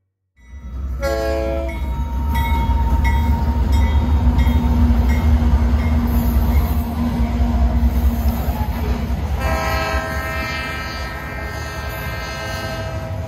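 Freight train passing close by: a Canadian Pacific diesel locomotive and its cars rumbling on the rails, with a train air horn sounding a short blast about a second in and a long blast from about ten seconds in.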